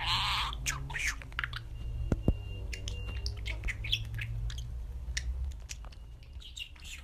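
Budgerigar chirping and chattering: a quick string of short, high chirps and squawks.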